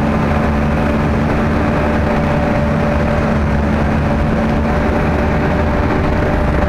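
Sherp ATV's diesel engine running steadily with the vehicle under way, heard from inside the cab: a low rumble with a constant hum over it.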